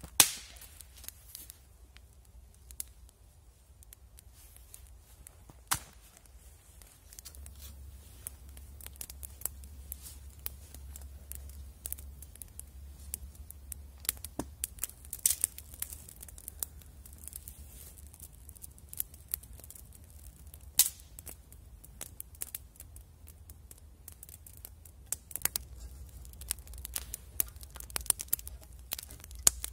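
Small stick campfire crackling, with many irregular sharp pops and snaps, and one loud crack right at the start.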